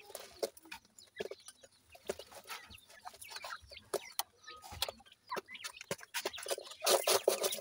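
Black francolin hen and chicks feeding on dirt: soft clucks and peeps mixed with short sharp pecking taps, which come thicker near the end.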